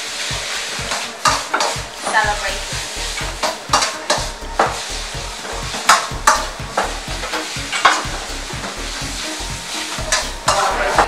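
Chopsticks stirring and tossing a shredded salad on a large platter, with irregular sharp clicks of the chopsticks against the dish over a steady hiss.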